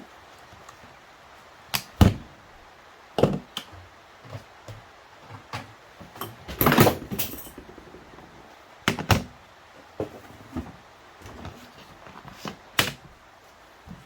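Hand tools being picked up and set down on a workbench: irregular clunks and clicks, with a longer rattle about seven seconds in.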